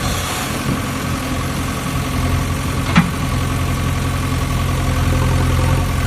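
JCB excavator's diesel engine running steadily at a low, even speed, with one sharp knock about three seconds in.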